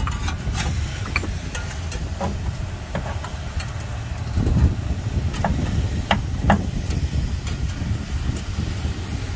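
Metal hand tools clinking against engine parts as a bolt is worked loose in an old car's engine bay: scattered sharp clinks, the loudest three coming between about five and seven seconds in, over a steady low rumble.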